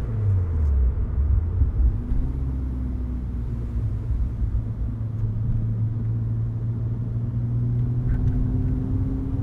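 BMW Z1's 2.5-litre straight-six engine running with a steady low note, its pitch rising slightly over the last few seconds.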